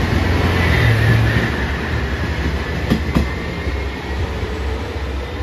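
JR Shikoku 1500 series diesel railcar pulling out, its engine running under power with a steady low hum. Two sharp clicks come about three seconds in, and the sound dies away near the end.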